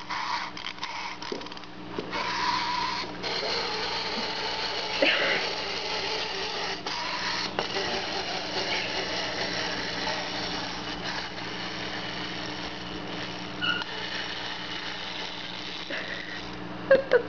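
Clockwork mechanism of a wind-up budgie toy running, a steady whirring as the toy rolls around, with a burst of clicks in the first couple of seconds.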